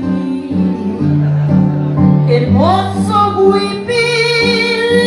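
Woman singing into a handheld microphone over a karaoke backing track. Her voice comes in about halfway through, sliding up into a long held note with vibrato.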